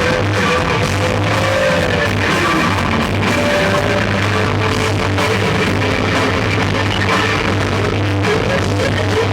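Live rock band playing a loud noise passage: distorted electric guitars with wavering, sliding tones over drums and bass guitar.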